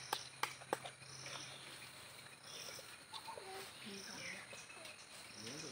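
An insect chirping in short high bursts about once every second and a quarter, with a few sharp clicks in the first second.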